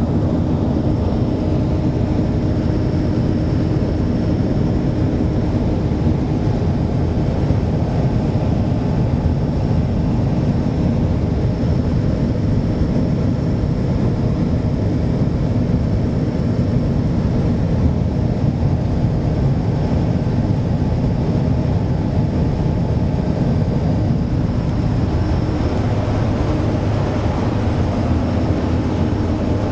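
Hydrofoil ferry's engines running at a steady speed: a loud, even drone and rumble, with a faint steady whine above it.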